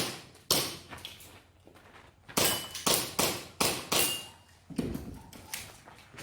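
Airsoft gas pistol firing a string of sharp shots in quick succession, with a pause of about a second and a half early on, and a short high ring after two of the shots.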